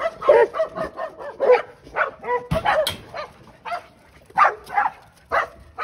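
Pet dogs barking and yipping excitedly, many short, sharp calls in quick succession.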